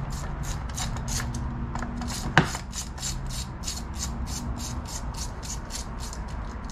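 Hand ratchet wrench clicking in a quick steady rhythm, about four clicks a second, as it is swung to run down intake manifold bolts. A single sharper metal clink about two and a half seconds in.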